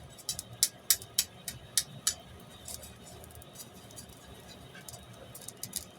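A string of sharp clicks and light clinks: about eight in the first two seconds, then a few more close together near the end.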